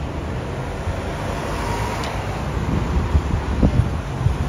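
Steady street traffic noise: a continuous wash of car engines and tyres with a heavy low rumble.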